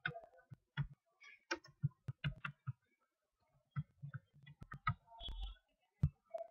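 Computer mouse clicking: about a dozen irregular clicks and taps, with a brief low rumble about five seconds in.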